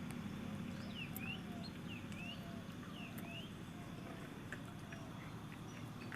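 A bird calling repeatedly, a short quick down-and-up chirp about once a second, faint over a low steady background hum.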